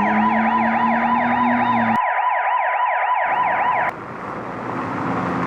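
Electronic toy siren wailing fast, about four sweeps a second over a steady beep, that cuts off about four seconds in. A rushing noise then swells to the end.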